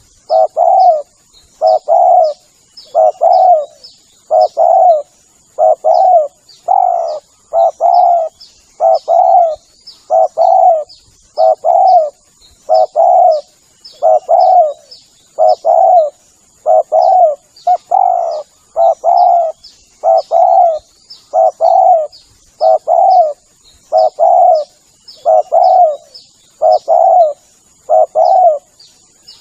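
Spotted dove (tekukur) cooing over and over, a phrase of two or three soft coos about once a second. Faint high chirping and a steady thin high tone sit behind it.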